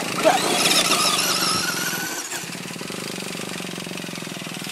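Small nitro engine of an RC car revving with a rising whine, then settling into a steady buzz about two seconds in.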